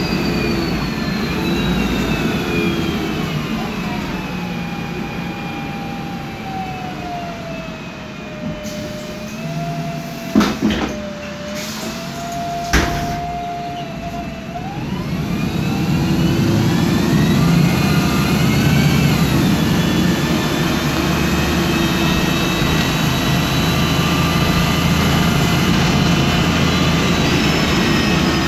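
Voith DIWA automatic transmission of a MAN Lion's Classic CNG city bus whining over the engine's low running sound, heard from inside the bus. The whine falls in pitch, holds level, then rises again as the bus picks up speed, stepping up in pitch near the end. Two sharp knocks come a couple of seconds apart near the middle.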